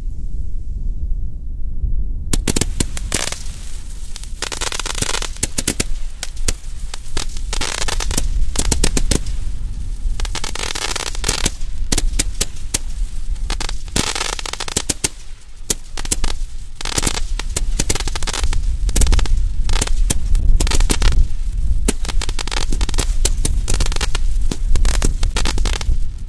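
A 56-shot firework candle firing comets in rapid succession, a string of sharp shots with crackling tips, starting about two seconds in. A steady low rumble runs under it.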